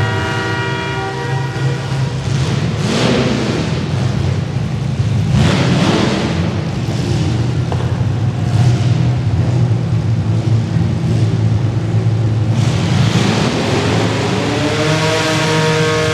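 Several compact demolition derby cars' engines running and revving hard. A horn sounds for about the first two seconds, and near the end the engine pitch climbs under heavy throttle.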